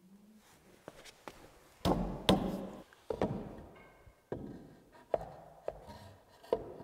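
Irregular wooden knocks and taps, about seven in all, as 4x4 wooden bottom rails are worked into place between newel posts. Each knock rings briefly in the big open room.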